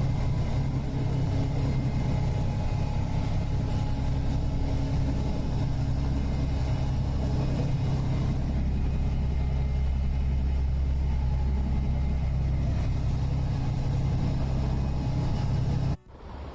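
Steady low drone of a ship's engines and machinery running under way, with constant deep tones and a rumble; it cuts off abruptly near the end.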